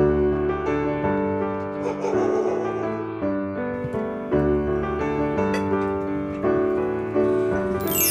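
Background piano music, slow chords changing every second or two, with a bright rising sweep near the end.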